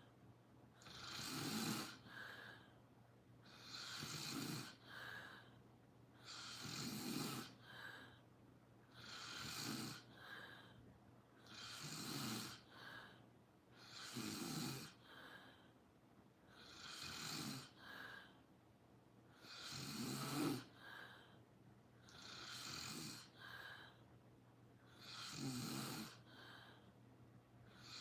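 Someone asleep snoring steadily, one rough snoring breath about every two and a half to three seconds.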